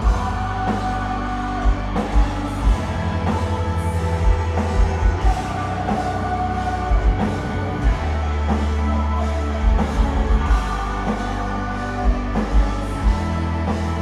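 Metalcore band playing live: distorted guitars with a sustained lead melody over heavy bass and drums, the kick drum hitting in quick clusters.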